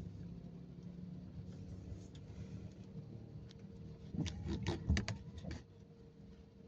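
Low steady hum inside a car cabin, stationary at a red light, with a quick irregular run of clicks and knocks a little past the middle.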